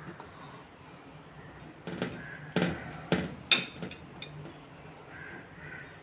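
Kitchen clatter: four sharp knocks in quick succession, about two to three and a half seconds in, over a low steady hum.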